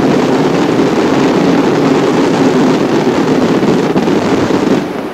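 Fireworks finale barrage: so many shells bursting at once that they merge into one continuous loud roar, which drops off just before the end as separate bangs begin to stand out.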